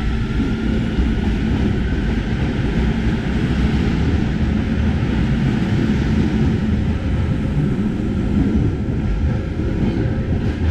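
Barcelona Metro train pulling out of the station and running off into the tunnel: a loud, steady rumble of wheels and traction motors with a faint hum in it, easing slightly near the end.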